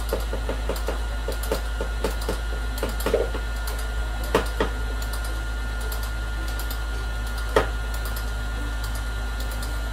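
Electric stand mixer running steadily with a hum and a thin whine, mixing fruit cake batter as flour is added. A quick run of light clicks comes in the first few seconds, then a few single knocks, the sharpest about three quarters of the way through.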